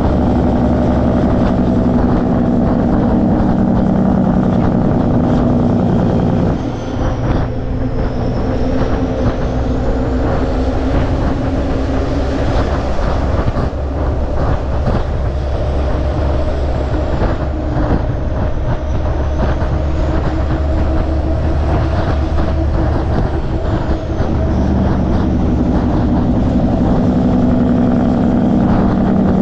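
Peterbilt 389 truck's Caterpillar C15 twin-turbo diesel engine running on the road, with steady road and rattle noise. The engine's low drone thins out about six seconds in and comes back strongly near the end.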